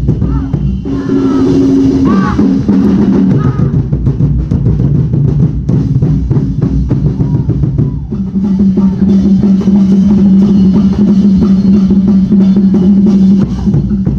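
Loud street-dance festival music driven by drums: bass drums and snares beating a dense, steady rhythm. A sustained low note is held through the second half.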